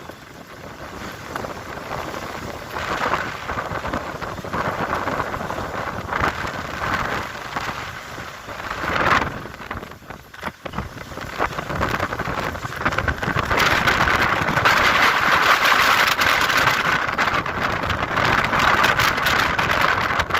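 Storm-force wind gusting hard across the microphone as a steady rushing noise that rises and falls in gusts, growing loudest in a long blast over the second half.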